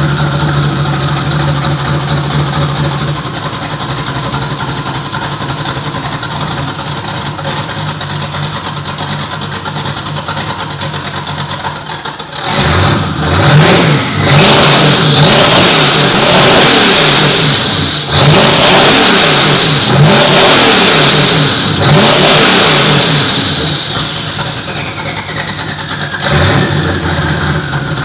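Twin-turbo Chevy 350 small-block V8 with open downpipes idling, then revved hard several times in a row about halfway through, each rev rising and falling with a high turbo whistle over the exhaust. It settles back to idle, with a falling whistle near the end.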